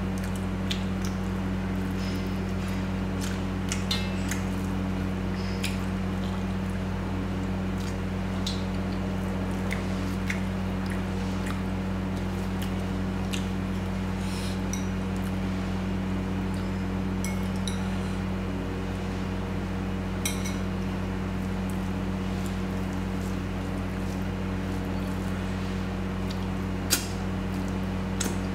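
Close-miked eating of mutton curry with rice: scattered wet mouth clicks, squishes and chewing sounds, with an occasional light clink, over a steady low hum. A sharper click comes near the end.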